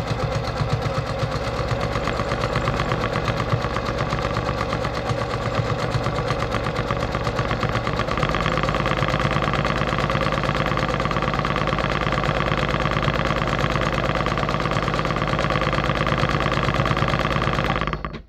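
Brother PQ1500SL straight-stitch sewing machine running at speed, free-motion quilting through a quilt sandwich, its needle strokes a fast even rattle. It gets a little louder about halfway through and stops abruptly near the end.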